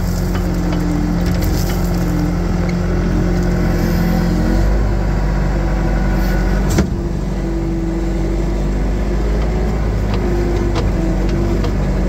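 Case 450 skid steer's four-cylinder diesel engine running steadily, heard from the operator's seat, with a single sharp clack about seven seconds in.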